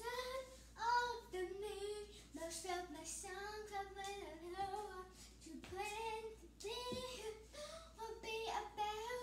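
A young girl singing solo and unaccompanied, her held notes sliding up and down in pitch.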